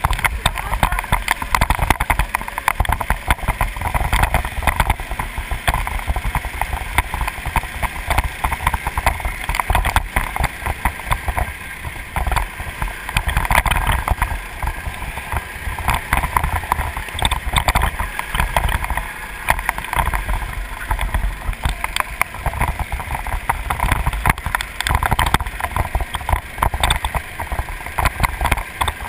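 Onboard sound of a racing go-kart at speed: its small engine running hard without let-up, with wind rumbling on the camera microphone.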